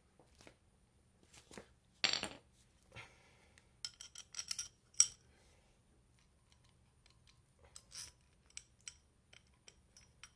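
Metal fan-motor parts and tools being handled: scattered clicks and clinks with a metallic ring, a short scrape about two seconds in, and the loudest clink about five seconds in.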